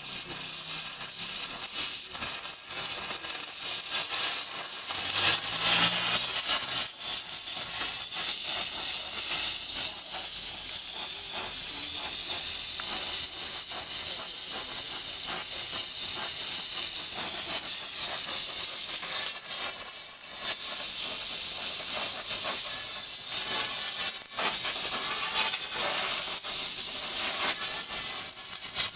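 Brazing torch flame hissing steadily as it heats a bicycle frame's bottom bracket joint for brazing.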